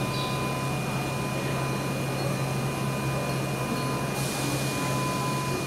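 Steady low hum and mechanical rumble on a railway station platform, with thin steady tones above it and a hiss joining about four seconds in.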